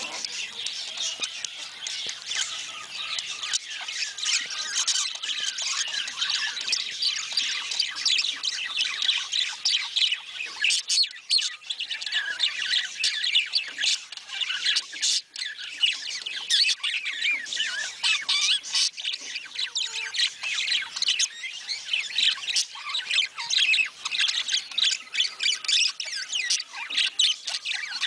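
Many budgerigars chattering together: a dense, unbroken stream of quick high chirps.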